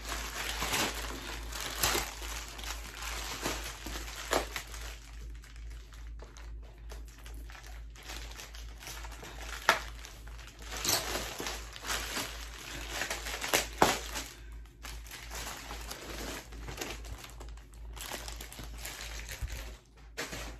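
Bubble-plastic packaging crinkling and rustling as it is handled and pulled off a board, with a few sharp crackles along the way.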